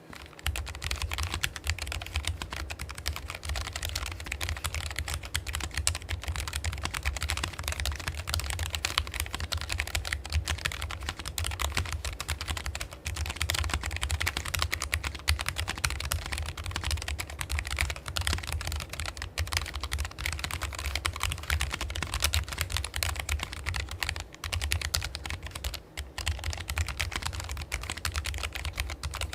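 Logitech G913 low-profile keyboard with tactile (brown) switches, fully lubricated, being typed on fast and continuously: a dense stream of key clacks, with short pauses about 13 and 26 seconds in.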